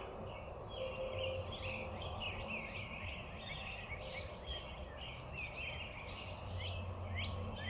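Many small birds chirping at once in the morning chorus, quick descending chirps overlapping several times a second, over a low steady hum.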